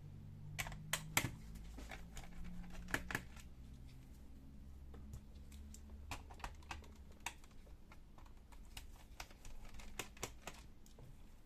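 Irregular light clicks and taps of a screwdriver and small screws against the plastic bottom case of a Lenovo G50-30 laptop as its panel screws are taken out. A faint low hum runs under the first few seconds.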